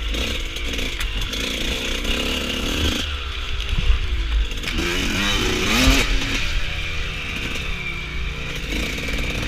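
Suzuki RM125 two-stroke dirt bike engine revving up and down over and over, its pitch rising and falling, over a steady low rumble.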